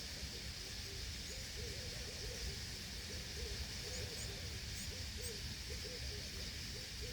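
Steady high rushing hiss from a large swarming flock of birds, with a short low hooting call repeating about twice a second and a few faint high chirps about halfway through.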